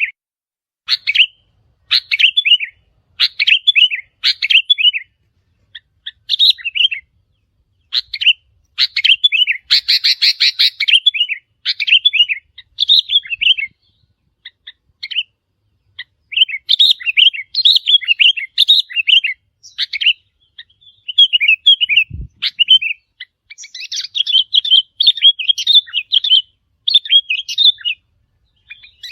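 Sooty-headed bulbul song: short phrases of quick, bubbly chirping notes repeated about once a second, with brief pauses between them. A single short low thump about 22 seconds in.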